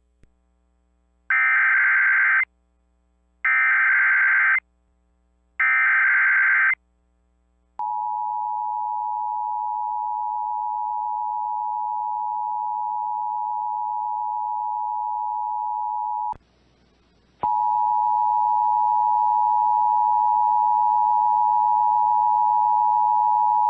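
Emergency Alert System broadcast tones: three short warbling SAME data header bursts about a second apart, then the steady two-tone EAS attention signal for about eight seconds. After a brief break a second steady alert tone starts, with radio hiss and hum beneath it.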